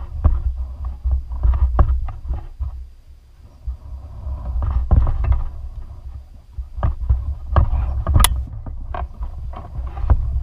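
Low, uneven thumping rumble on the microphone with scattered knocks and clicks while a fish is reeled in alongside a kayak. Sharper clicks and splashes come in the last few seconds as the fish thrashes at the surface beside the hull and the landing net goes out.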